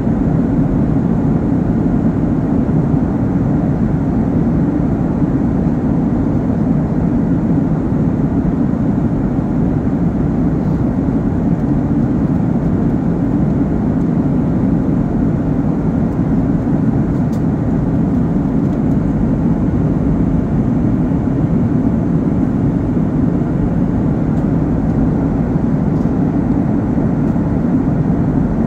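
Steady cabin noise of a Boeing 737 airliner in cruise: the low, even drone of the jet engines and air rushing past the fuselage, heard from a window seat inside the cabin.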